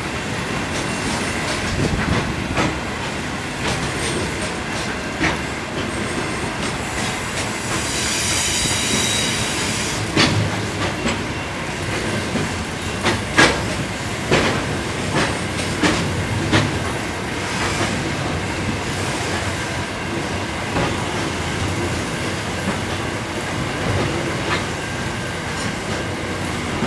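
Grain hopper wagons of a freight train rolling slowly past, their wheels clacking irregularly over the rail joints. About seven seconds in, a high-pitched wheel squeal rings out for about three seconds.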